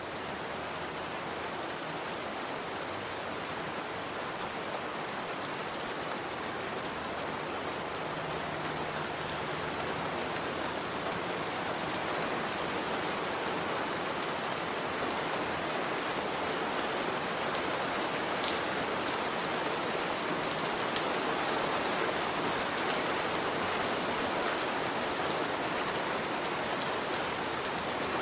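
Heavy rain falling and splashing on a surface: a dense, steady rush of rain with many sharp drop impacts, slowly growing louder through the first half.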